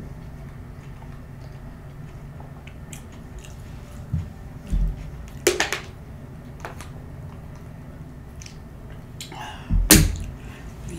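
Handling of a plastic water bottle and drinking from it: a few soft thumps and sharp clicks, the loudest a knock near the end, with quiet mouth sounds over a steady low room hum.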